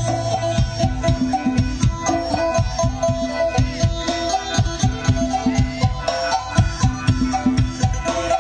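Thai-Lao traditional folk dance music with a steady, repeating drum beat under a sustained melody, played over loudspeakers.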